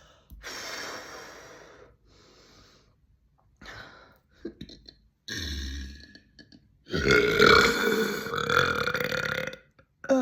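A woman burping: several shorter burps and breathy air sounds, then a long, loud, deep burp lasting almost three seconds about seven seconds in.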